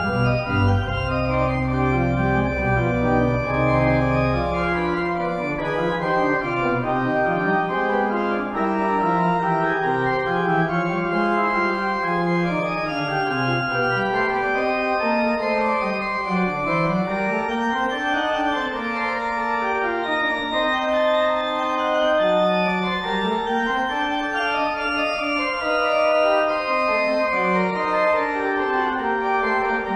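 Church organ playing a slow closing voluntary, with sustained chords and moving melodic lines; the low pedal bass drops out about five seconds in.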